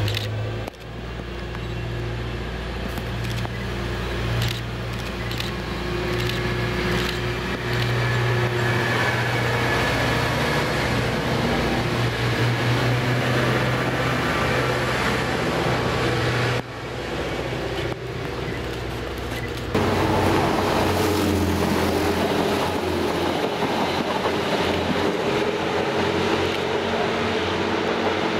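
A Trenitalia Minuetto diesel multiple unit running into the station, its diesel engines giving a steady low drone as it draws close. After an abrupt change about two-thirds of the way in, a different, noisier train sound follows as another diesel railcar comes along the line.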